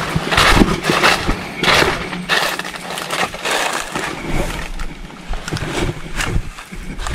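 Footsteps crunching and crackling through thick dry leaf litter and brush, a crunch about every half second, easing off after about four seconds.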